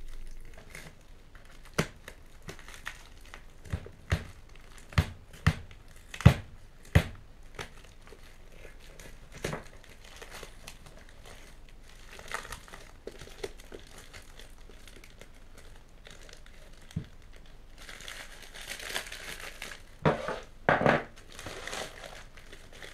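Paper wrapping and packing tape being torn and peeled off a parcel by hand. Scattered sharp crinkles and crackles come first, then a louder burst of ripping near the end.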